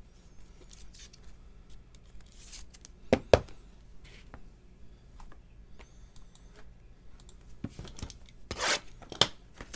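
Trading cards and plastic card holders being handled on a table: soft rubbing and sliding, one sharp tap a little over three seconds in, then louder rustling and scraping near the end.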